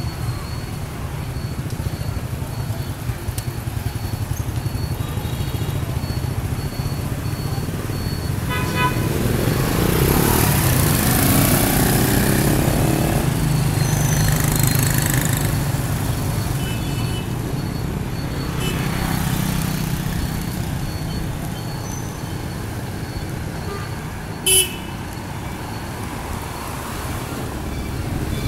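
Busy street traffic heard from a moving cyclo: motorbike engines swell and fade as they pass. Several short horn toots sound, with one sharp, louder blast near the end.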